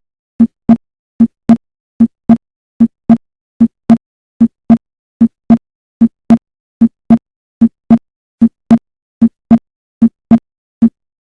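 Heart sounds heard through auscultation: a steady lub-dub rhythm of paired low thumps (S1 then S2) at about 75 beats a minute, stopping shortly before the end. This is the sound given for the aortic focus.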